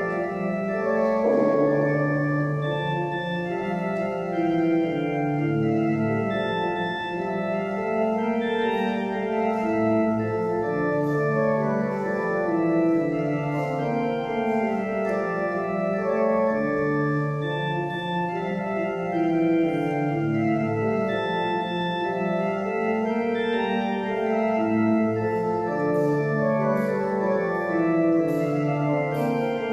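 Organ music played in slow, held chords that change every second or two.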